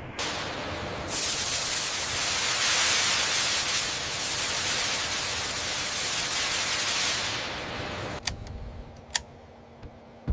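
A loud, steady rushing hiss that lasts about seven seconds and dies away, followed by two sharp clicks about a second apart.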